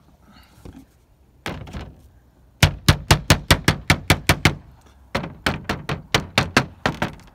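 Rubber mallet beating lead flashing down onto a fibre cement slate roof, tamping the flashing back over the top course of slates. A couple of blows, then two fast runs of knocks at about five a second with a short break between.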